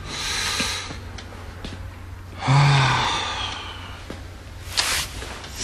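A man sighing heavily about two and a half seconds in, a breathy exhale with a short low hum, with softer breaths around it. It is a worried sigh from someone weighed down by trouble.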